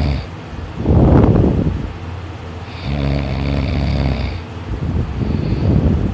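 Heavy snoring during sleep: a loud, rough breath about a second in, a long low-pitched snore around three seconds in, then another noisy breath near the end.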